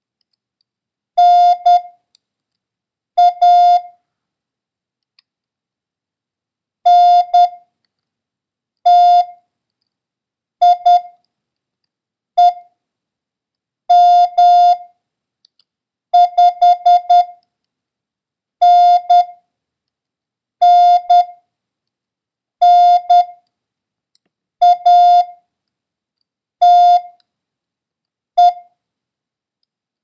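Morse code practice tone, a steady beep of about 700 Hz, keyed in dits and dahs to send single characters one at a time about two seconds apart: a copy-practice run of letters and numbers such as N, A, M and 5.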